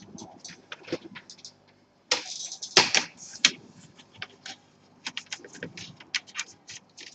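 Hands handling a disassembled laptop, its plugs and cables: irregular small clicks and taps, with a louder clatter from about two to three and a half seconds in.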